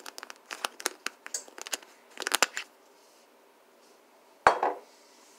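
Light clicks and rattles from handling a spice jar of parsley flakes after sprinkling, then a single sharp knock about four and a half seconds in as the jar is set down on the countertop.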